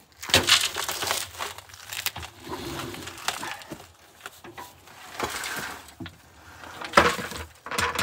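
Pulverized hickory charcoal with chunks pouring from a plastic bucket into a steel cement mixer drum: an uneven gritty rattling pour, with knocks and scrapes of the bucket on the drum rim, sharpest just after the start and about seven seconds in.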